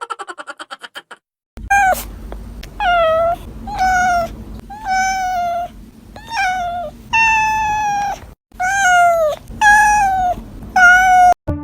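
A cat meowing over and over, about nine meows in a row roughly a second apart, each one short and slightly falling in pitch.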